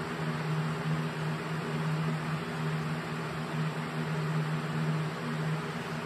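20-inch House To Home box fan running: a steady white-noise rush of air from the blades over a low motor hum.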